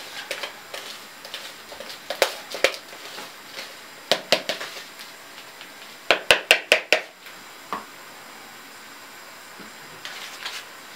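Dry spice powders being mixed by hand in a plastic tub: scattered scrapes and knocks on the tub, then a quick run of about six sharp knocks about six seconds in, as the tub is moved about.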